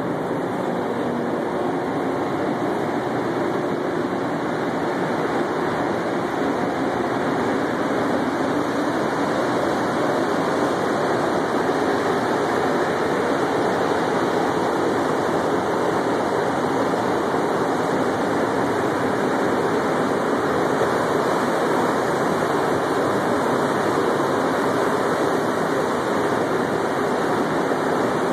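Bombardier MR-73 rubber-tyred metro car heard from inside, pulling away and running through the tunnel: a steady rumble and rush of tyres and running gear, growing slightly louder over the first ten seconds.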